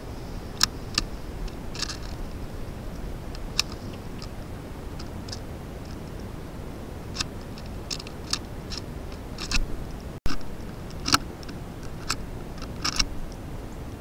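Short, sharp, scattered clicks and chips from a flock of small birds feeding on a concrete bird bath, over a steady hiss from the trail camera's microphone. There is a brief dropout about ten seconds in where the recording cuts.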